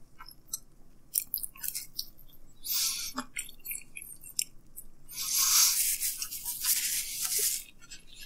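Close-up chewing of thin-crust pepperoni pizza, the crisp crust crunching in two louder spells, one about three seconds in and one from about five to seven and a half seconds, with small clicks in between.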